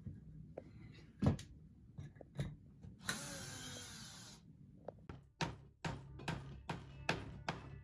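Hand building work: a few sharp knocks, then a steady hiss lasting about a second and a half, then a run of sharp knocks at about two or three a second toward the end.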